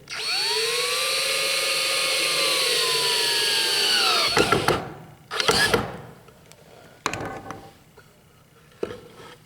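Cordless drill/driver running for about four seconds as it drives a wood screw, its motor pitch sagging near the end as the screw seats, then stopping. A few clicks and knocks follow.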